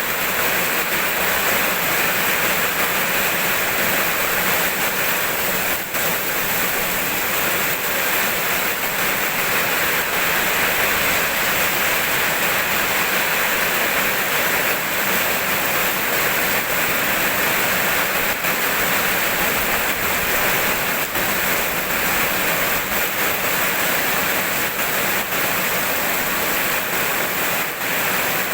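Steady rain falling, a dense, even hiss of drops with no breaks and no thunder.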